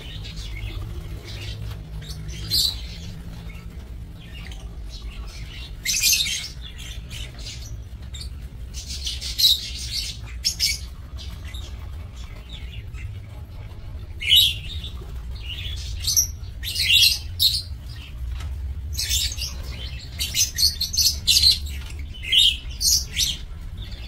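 A flock of lovebirds giving short, high-pitched chirps, scattered at first and coming thick and fast in the last third, over a low steady rumble.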